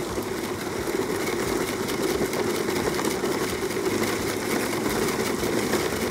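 Gardena push lawn sweeper rolling over grass, its brush roller spinning and sweeping grass clippings, pine needles and leaves into the collecting bag: a steady, fast, whirring rattle.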